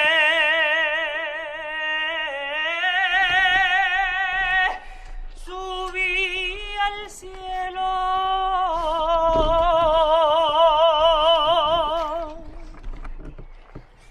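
A single voice singing unaccompanied, holding long notes with a wide vibrato, in a few phrases with short breaks about five and seven seconds in. The singing stops about twelve seconds in.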